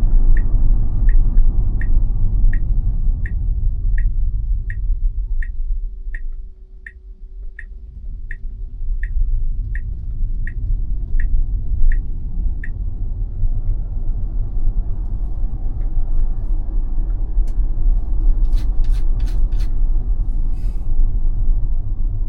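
Tesla turn-signal indicator ticking steadily over the low rumble of the cabin on the move, the ticking stopping a little past halfway as the turn is completed. A few sharp clicks sound near the end.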